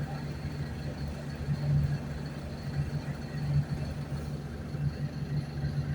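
Mercedes-Benz OF-1519 bus's diesel engine running steadily as a low drone with slow swells, and a faint steady high whistle above it.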